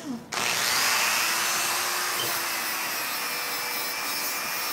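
Electric dog-nail grinder running steadily with a whirring hiss as a Boxer's toenails are ground down. It starts about half a second in.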